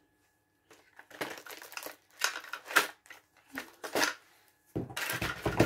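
Hands rummaging through craft supplies on a table: a string of short clattering and rustling noises. It starts about a second in and gets denser near the end.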